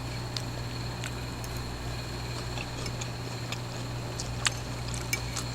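Faint chewing and mouth sounds of someone eating fried food, with a few small clicks, the clearest about four and a half seconds in, over a steady low hum.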